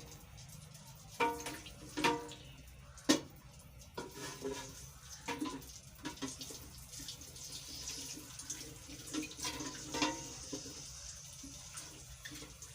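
A watery conditioner mixture being stirred in a container, with sloshing and swishing. There are scattered clinks and a sharp knock about three seconds in.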